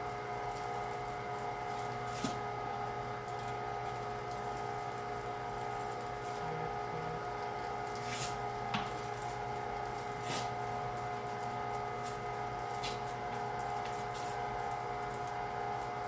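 Carnivore 1-horsepower electric meat grinder running with a steady hum as it pushes ground pork slowly through a stuffing tube into a casing. A few light clicks are heard now and then.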